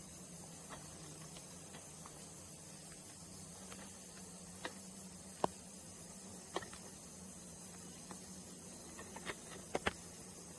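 Faint steady hiss with a low hum, broken by a few scattered sharp clicks, two of them close together near the end.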